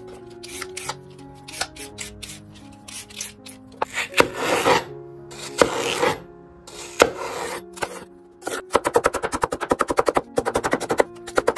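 A chef's knife cuts celery on a bamboo cutting board. First come a few taps and two longer scraping strokes as the stalk is sliced lengthwise. About three-quarters of the way through, fast, even chopping starts: the blade knocks on the board several times a second as the celery is diced. Background music plays throughout.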